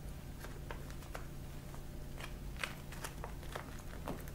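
Silicone baking paper crinkling and rustling in scattered short, soft crackles as it is rolled tightly around layers of Big Mac bun, patties and vegetables.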